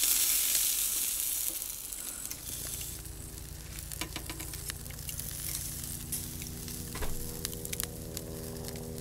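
Chicken wings sizzling over charcoal on a mangal, with steel tongs clicking against the wire grill grate as the wings are turned. The sizzle is loudest in the first two seconds; after that a steady low hum sits under the fainter hiss.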